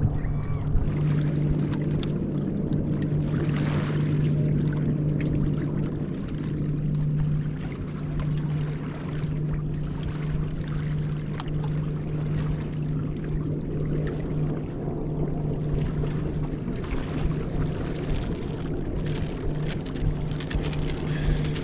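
Steady low hum of a motor aboard a fishing boat, holding one even pitch throughout, with light rustling and a few clicks over it.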